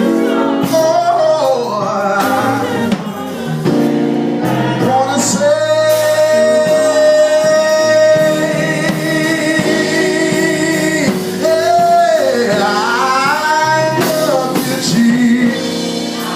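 Live gospel worship song: a lead vocalist sings over band accompaniment, holding one long note for several seconds midway, then sliding through a melismatic run.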